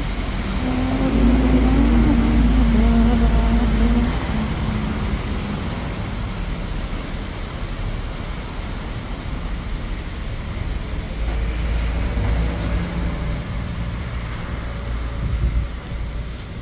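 Road traffic passing close by, with a vehicle engine droning loudest over the first four seconds and another passing later on.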